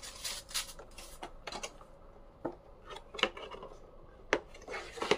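Paper wrapping rustling as it is handled and folded, then scattered light clicks and taps as a small oval desk mirror is picked up and turned in the hands.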